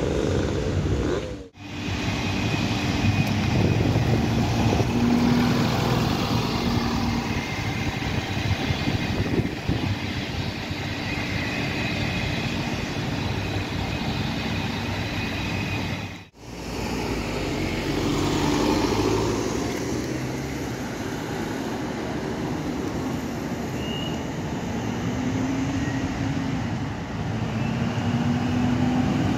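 Street traffic and vehicle engines running and passing, broken by two abrupt cuts. Near the end a city bus's engine rises in pitch as the bus moves off.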